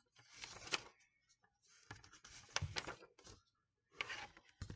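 Pages of a hardcover picture book being opened and turned by hand: soft paper rustles in several short spells, with a few light clicks.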